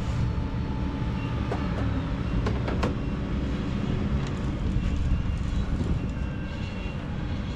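Steady low rumble of an engine or machinery running in the background, with a few faint clicks in the first three seconds.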